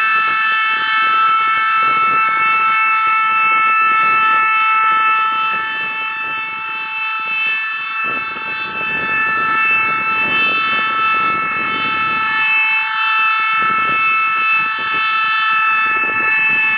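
Civil-defence warning siren sounding for a test alarm, held on one steady pitch with a chord of overtones. Irregular low rumbling noise runs underneath.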